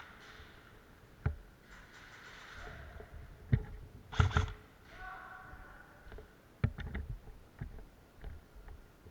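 A few scattered sharp clicks and knocks over a quiet hiss: single ones a second or two apart, a short cluster around the middle and a quick run of several about two-thirds of the way through.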